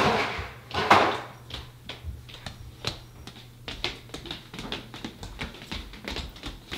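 Light, irregular taps and clicks of toddlers' bare feet on a hardwood floor, with two louder knocks in the first second.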